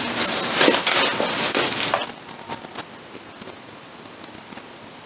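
Packaging crinkling and crackling as it is handled, loud for about two seconds. Then softer rustles and a few small clicks.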